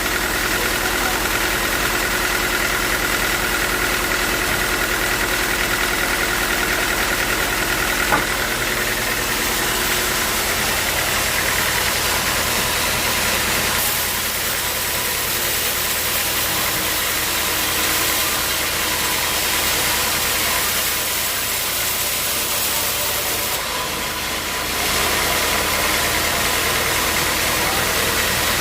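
Engine of a portable bandsaw sawmill running steadily under a constant hiss, with a single sharp click about eight seconds in.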